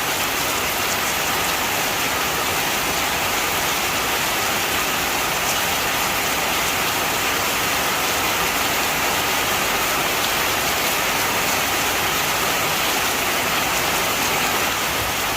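Heavy rain falling steadily, a dense, even hiss of many drops with a few faint separate drop ticks.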